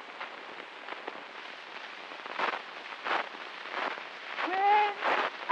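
Surface hiss and crackle of an 1890 wax phonograph cylinder, with scattered clicks and a few louder scratchy pops; a faint, distorted old voice begins speaking near the end.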